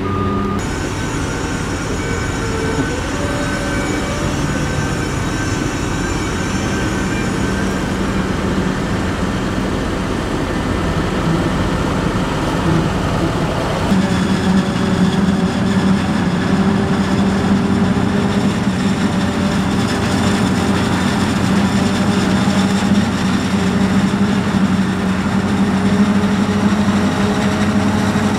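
Heavy farm machinery running steadily: a New Holland tractor's engine while its high-tip trailer is raised to unload chopped maize. About 14 s in the sound changes to a New Holland FR780 forage harvester chopping maize, with a strong steady hum.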